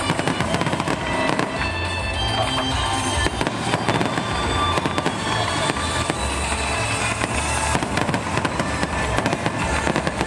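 Fireworks display: many aerial shells bursting in quick succession, a dense, unbroken run of bangs and crackles.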